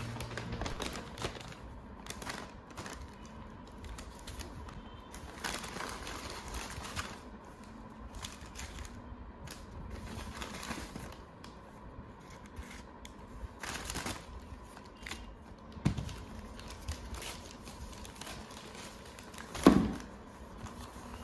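Small handling sounds in a room: irregular light taps, clicks and rustling, with a sharp knock near the end.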